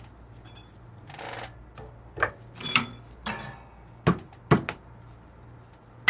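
About five light, irregular taps and clinks of small coffee tools and cups being handled and set down on a countertop, over a faint steady low hum.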